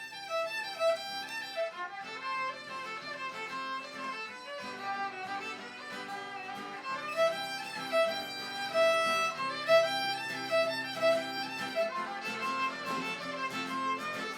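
Fiddle music with a lively run of bowed notes over a steady lower accompaniment.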